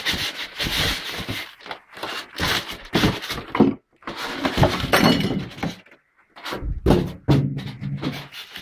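Packing being handled: a polystyrene foam insert rubbing and creaking against the cardboard box, and the plastic wrapping over the saw rustling, in irregular bursts with a few thunks.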